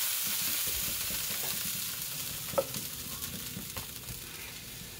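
Butter sizzling on a very hot stovetop griddle, a steady hiss that slowly dies down. A single sharp clink comes about two and a half seconds in.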